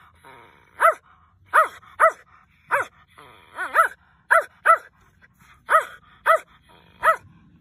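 Shetland Sheepdog puppy barking, about eleven short, high yaps each rising and falling in pitch, some single and some in quick pairs, at a finger reaching in to boop its nose.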